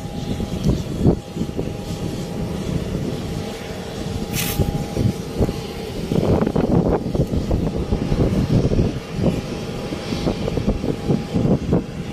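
Wind buffeting the microphone in uneven gusts, over a faint steady hum from distant aircraft engines at the airfield. A short hiss about four and a half seconds in.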